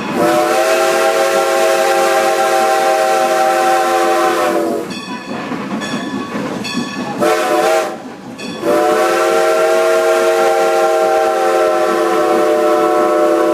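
Steam locomotive's chime whistle sounding the grade-crossing signal: a long blast, a short blast about seven seconds in, then a final long blast held to the end, warning a road crossing ahead. Under the whistle, the train runs on the rails.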